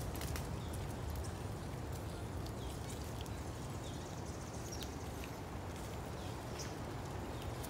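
Outdoor ambience: a steady low rumble with scattered faint short high chirps and light clicks.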